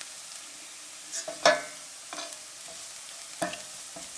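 Chopped onions and garlic sizzling in hot oil while being stirred, the spoon knocking against the pan several times. The loudest clank, about a second and a half in, rings briefly.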